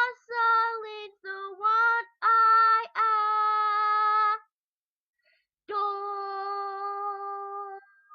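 A young female voice singing unaccompanied: a string of short notes, then, after a pause of about a second, one long held note.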